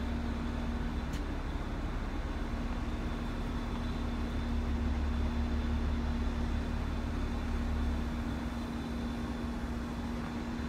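A vintage GE diesel locomotive's engine idling steadily: a low rumble with a constant hum, swelling slightly around the middle.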